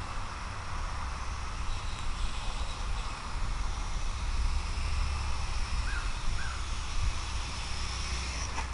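Strong wind buffeting the microphone, a steady low rumble with a rushing hiss. About six seconds in come two short, faint calls.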